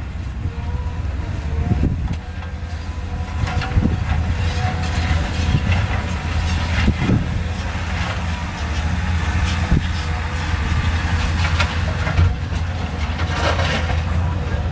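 Cat 320 excavator's diesel engine running under load with a steady whine, while stone knocks and scrapes against the bucket several times.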